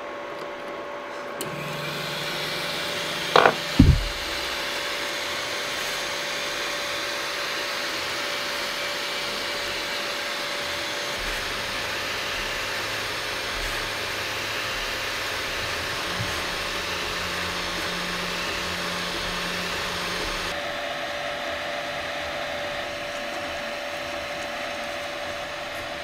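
Anycubic i3 Mega 3D printer running a print after its upgrade to low-noise fans and TMC2208 stepper drivers: a steady fan whir with a constant whine, and under it the low, shifting hum of the stepper motors as the head and bed move. Two sharp clicks, the loudest sounds, come close together a few seconds in. Overall it runs very quiet.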